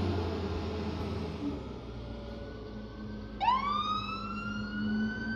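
Vehicle siren starting up with a quick upward sweep about three and a half seconds in, then a slowly climbing wail, over the steady noise and low hum of passing traffic.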